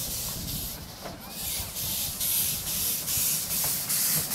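Small narrow-gauge steam locomotive moving off: a steady hiss of steam, then from about a second in rhythmic exhaust chuffs, a little under three a second, over a low running rumble.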